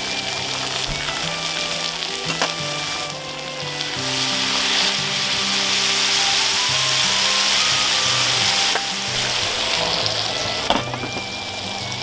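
Beef steak and garlic cloves sizzling in oil in an iron frying pan. The sizzle grows louder from about four to nine seconds in, over background music.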